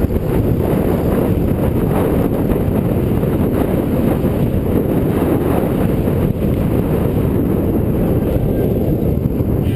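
Wind buffeting the camera microphone as the skier moves downhill: a loud, steady low rush.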